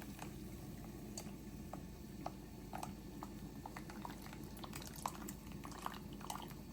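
A pot of food on the stove simmering faintly, bubbling with scattered small pops and ticks.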